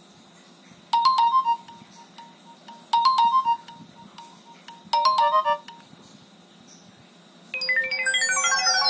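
Nokia N73 mobile phone playing a ringtone through its loudspeaker: a short phrase of a few quick electronic notes, sounded three times about two seconds apart. Near the end a different ringtone starts, with a quick run of notes falling in pitch.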